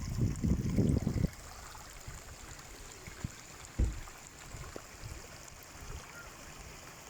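Wind buffeting the microphone in low gusts for about the first second, then a steady hiss of running water with a single thump about four seconds in.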